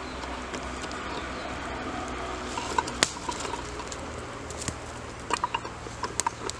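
Campfire crackling, with scattered sharp pops about three seconds in and a quick cluster of them near the end.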